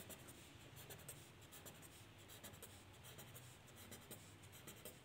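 Faint scratching of a pen on paper: a run of short strokes as arrows are drawn.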